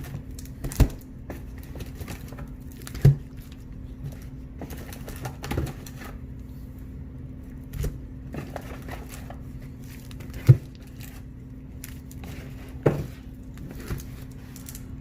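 Baseball trading cards being handled and set down one at a time, a sharp tap every two seconds or so, over a steady low hum.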